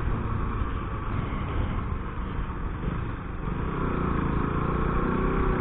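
Motorcycle riding along a road: engine running under wind rushing past the bike-mounted camera. It eases a little around three seconds in, then a faint engine note rises near the end.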